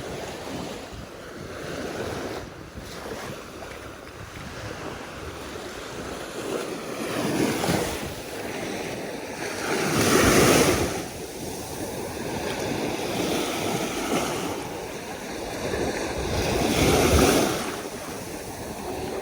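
Sea waves breaking and washing on a beach, a steady surf noise that swells loudly twice, about ten and about seventeen seconds in, with wind buffeting the microphone.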